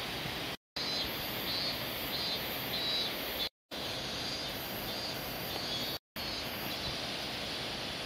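Steady rushing of a mountain stream, with faint high chirping calls repeating about twice a second over it. The sound cuts out completely for a moment three times.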